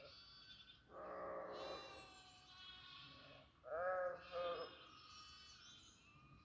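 Several goats bleating, their calls overlapping at different pitches: thin high bleats throughout and a louder, lower bleat in two pulses about four seconds in.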